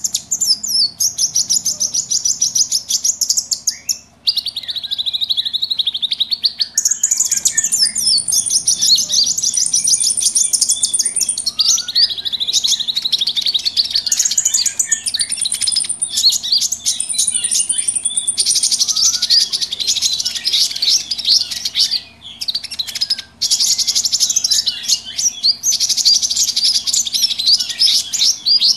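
Mixed small birds chattering noisily: dense, rapid high-pitched chirps and trills, the kind of commotion recording played as a lure to draw in and excite birds for trapping. It breaks off briefly a few times where the recording is spliced.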